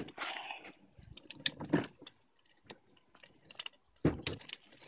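Plastic ride-on toy car being pulled along a paved path, its wheels and body giving irregular knocks, scrapes and rattles, with a quiet spell in the middle.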